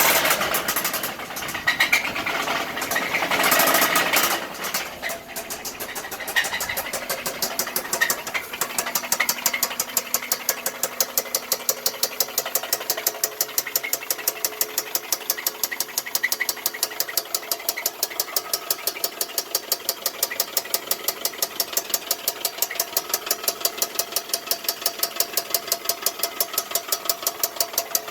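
2000 Toyota Camry engine revved for the first few seconds, then running with a fast, even knocking; the owner reports that it knocks when accelerating, will not go past 20 mph and smells of burning.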